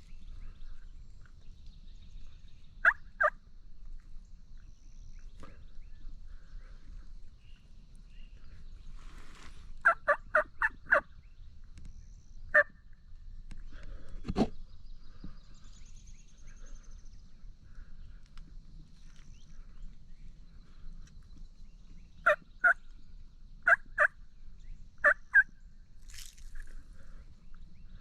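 Turkey yelps in short groups of two to four sharp notes, repeated several times with long pauses between. About halfway through there is a single louder knock.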